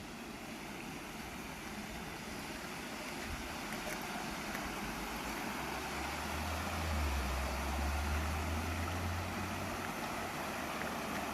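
Small waterfall with water rushing steadily, growing gradually louder. A low rumble joins for a few seconds past the middle.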